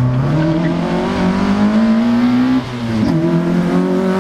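Citroën Saxo rally car's engine at full throttle, its pitch climbing steadily as it accelerates; about two and a half seconds in the sound briefly dips and drops in pitch for an upshift, then climbs again.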